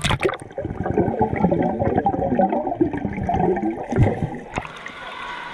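Water churning and gurgling, dull and muffled, which stops suddenly about four and a half seconds in.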